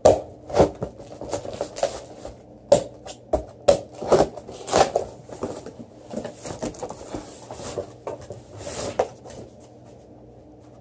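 A cardboard shipping box being opened and handled: irregular scrapes, crackles and knocks of cardboard and plastic wrapping as a stack of blank wooden skateboard decks is pulled out. The handling dies down near the end.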